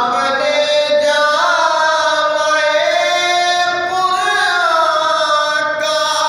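A man singing a manqabat solo and unaccompanied, in one long melodic phrase of held notes that glide up and down in pitch.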